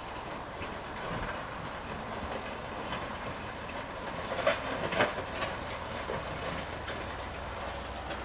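GS-14 motor grader working, its engine running with a steady rumble, with a few sharp clanks about halfway through.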